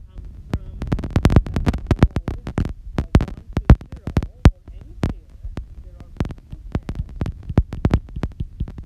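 Stylus tapping and scraping on a tablet's glass screen while handwriting: a fast, irregular run of sharp clicks and dull low thumps.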